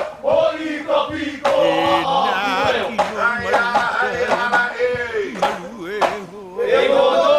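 Hawaiian hula chant: several voices chanting with a strongly wavering, ornamented pitch. Sharp drum beats come every second or so.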